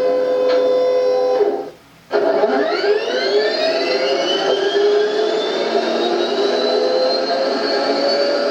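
Simulated M1A2 Abrams gas-turbine sound played through the speaker of a Heng Long RC tank's TK-22 sound board. A steady turbine whine cuts off about a second and a half in, then after a short gap the turbine spools up again, its whine rising in pitch and settling into a steady run.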